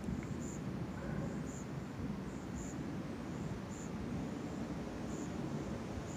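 Night insects chirping in short high notes about once a second, over a steady low background noise.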